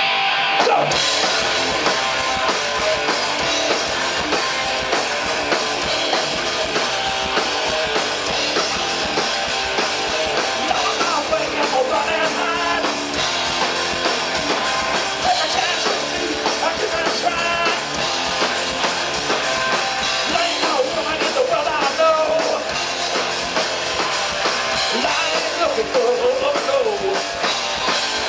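A rock band playing live, led by a drum kit with dense guitar and some singing.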